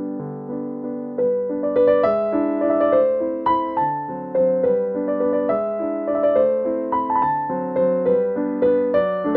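Background instrumental music: a light keyboard melody over sustained chords, with notes coming more busily from about two seconds in.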